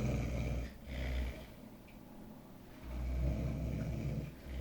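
A man snoring: a loud, low snore at the start, a short one about a second in, and another long snore about three seconds in.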